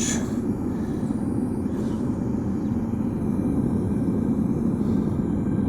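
Single-burner propane melting furnace running, its burner flame making a steady low rush.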